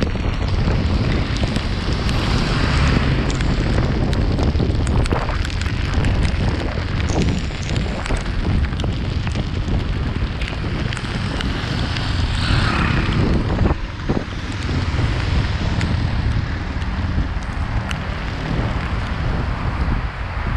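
Wind rumbling and buffeting on the microphone of a camera on a moving motorcycle, with the motorcycle's engine and the hiss of tyres on a wet road underneath. Loudness dips briefly about two-thirds of the way through.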